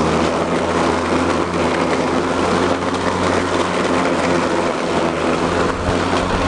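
EGO Power+ LM2130 56-volt cordless electric lawn mower running while pushed through a thick layer of dry fallen leaves, mulching them: a steady low hum from the motor and spinning blade under a constant hiss of shredding leaves.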